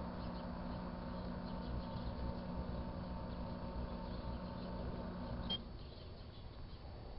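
1984 Kenmore microwave oven running with a steady electrical hum, then switched off with a click about five and a half seconds in, leaving it much quieter.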